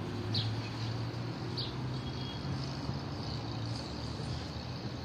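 Outdoor ambience: a steady low hum like a motor running, with a bird giving a few short high calls.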